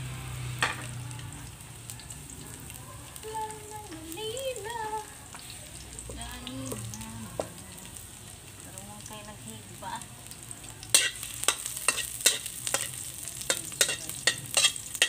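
Chopped garlic sizzling in a little oil in a steel wok. From about eleven seconds in, a metal spatula scrapes and clicks against the wok in quick strokes, two or three a second, as the garlic is sautéed.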